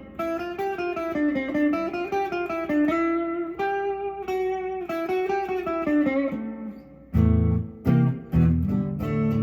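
Guitar music: a melody of quick picked single notes, then about seven seconds in, louder, lower chords come in.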